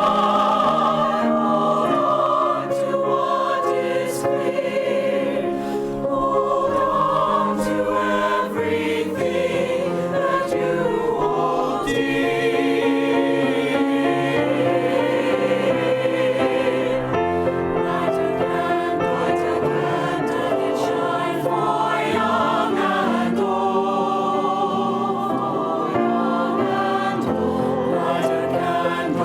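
A choir singing a holiday song.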